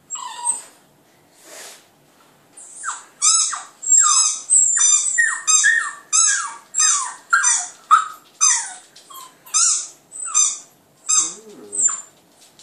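Border terrier puppy howling: a couple of soft calls, then from about three seconds in a quick run of short, high howls, each falling in pitch, about one to two a second.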